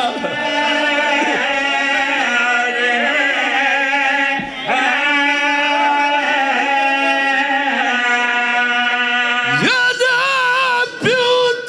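A man's voice chanting a mournful Punjabi lament verse in long, held, wavering notes, as a zakir does at a majlis. The chant breaks briefly about four and a half seconds in, and a new phrase slides sharply upward near the end.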